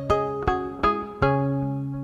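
Background music of plucked strings: a short run of picked notes, then a held low note that rings on.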